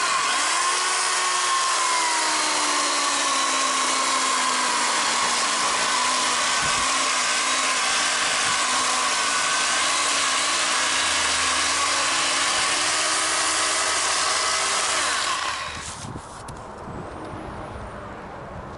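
Electric power tool motor running steadily while working wood. It starts abruptly, its whine drops a little in pitch over the first few seconds as it takes the load, rises slightly later on, and cuts off after about fifteen seconds.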